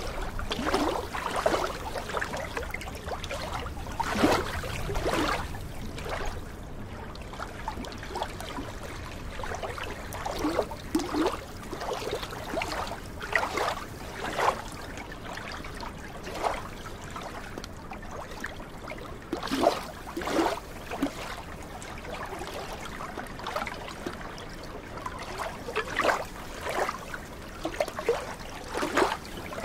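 Small waves on a glacier lagoon lapping and splashing against the shore in uneven slaps, every second or so, with a faint low rumble underneath.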